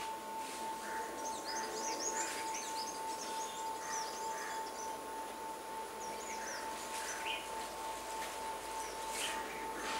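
Birds chirping in short, high calls, loudest in the first few seconds and again about two-thirds of the way through, over a steady high-pitched whine and faint outdoor background noise.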